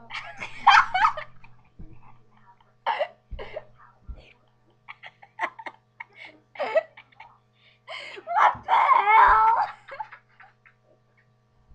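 Girls laughing in several separate bursts, the longest and loudest about eight seconds in.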